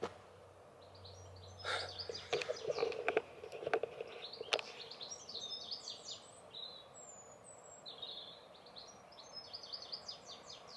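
Songbirds chirping and singing in open countryside, many short high chirps with a couple of clear whistled notes in the second half. In the first half a few clicks and rustles sound close by.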